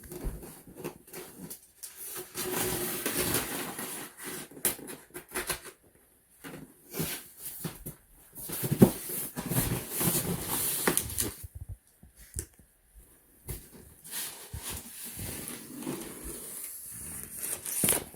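Cardboard box and packing material being handled and pulled open: irregular rustling and scraping with scattered knocks.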